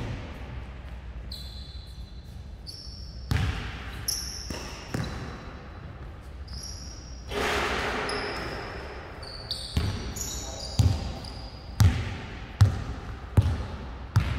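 A basketball bounced on a hard gym floor, each thud echoing in the large hall, with dribbling at about one bounce a second in the second half. Short high squeaks of sneakers on the court come in between.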